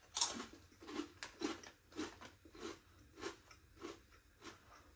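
A person chewing a mouthful of crunchy corn, rice and lentil snack puffs, crunching at a steady pace of about two to three chews a second.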